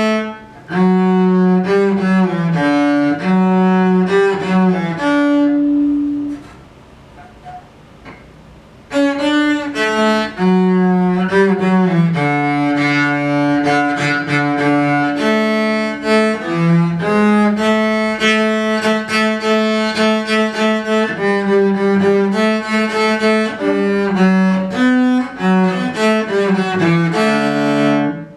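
Solo cello bowed through a melody of held, changing notes. About six seconds in it breaks off for roughly three seconds, then resumes.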